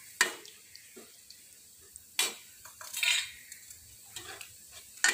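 Steel ladle stirring and scraping in a steel pan of garlic and cumin frying in oil, with several sharp metallic clinks of the ladle against the pan over a faint sizzle.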